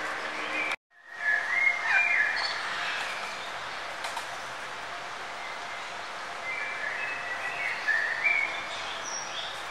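Birds chirping and singing over a steady background hiss. The sound cuts out completely for a split second about a second in, then resumes.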